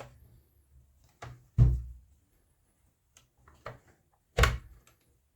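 Plastic rear cover of a Janome sewing machine being pushed and worked down onto the machine until it seats, giving a few dull knocks: two light ones and two loud thuds, about a second and a half in and near the end.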